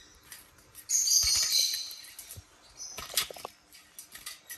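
Small pet parrots chirping and fluttering at a dish of bath water: a dense, high burst lasting about a second, starting about a second in, then a few light clicks around the three-second mark.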